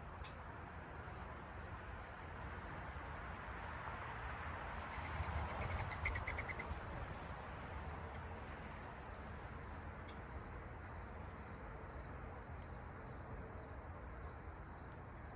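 Steady, high-pitched insect chirring throughout, with a swell of broader noise and a brief rapid rattle of clicks about six seconds in.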